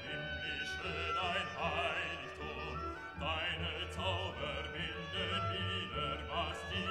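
Background music: a wavering vibrato melody over a steady low accompaniment.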